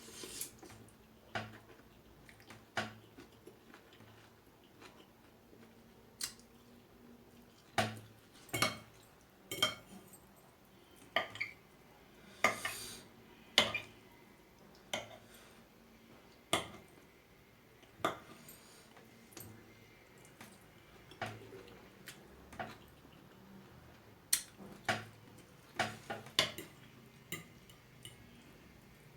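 Spoon or fork clinking and scraping against a bowl of noodles during eating, in sharp irregular clinks with quiet gaps between them.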